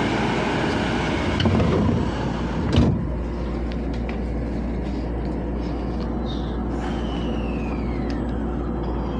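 Sliding door of an E127-series train closing with a thump about three seconds in, after which the louder station noise drops to the steady hum inside the carriage. A whine falls in pitch near the end.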